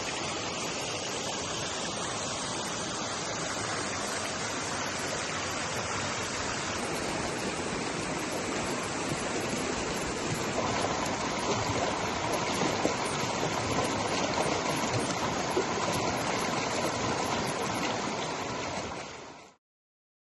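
Mountain stream water rushing steadily over rocks, fading out near the end.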